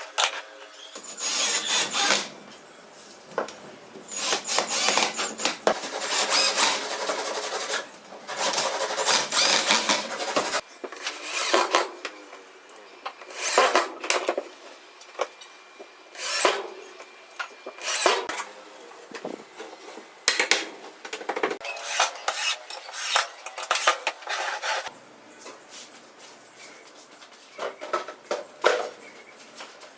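Repeated scraping strokes on wood, each one to two seconds long, coming in irregular bursts and turning lighter about 25 seconds in.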